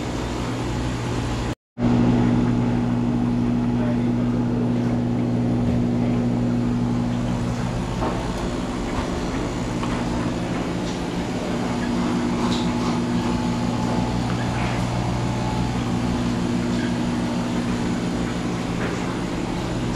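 Steady low mechanical hum from running equipment, cutting out for an instant about two seconds in, with faint scattered ticks.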